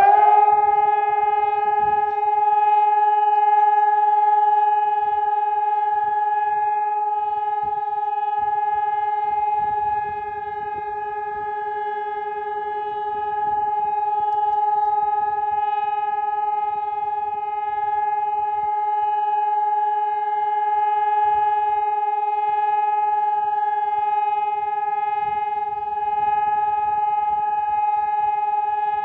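Telegrafia Pavian electronic warning siren sounding one continuous, unwavering tone with overtones. This is the steady test signal of Slovakia's regular siren test.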